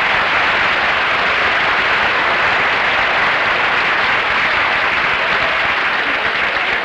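Studio audience applauding, a steady, loud, dense clapping that holds throughout.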